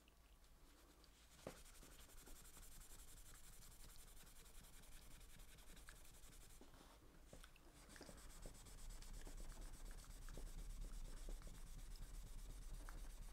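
Faint rubbing and scrubbing by hand on the outer face of a small metal three-jaw lathe chuck as it is cleaned. It starts about a second in and pauses briefly about halfway through.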